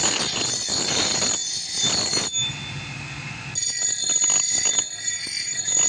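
Power grinder grinding the steel of an axe head: a high, steady whine over harsh grinding noise, easing off briefly in the middle and biting again about three and a half seconds in.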